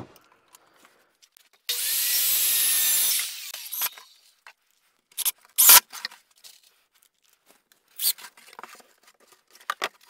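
Cordless impact driver running for about a second and a half as it drives a screw into a barn-board birdhouse roof, then two shorter bursts later on, with light knocks of wood in between.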